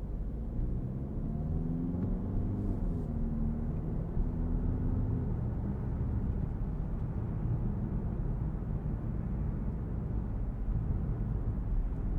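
A 2023 Citroen C5 Aircross's 1.5-litre diesel engine pulling the car over a steady low road rumble, its pitch rising over the first few seconds and then holding level.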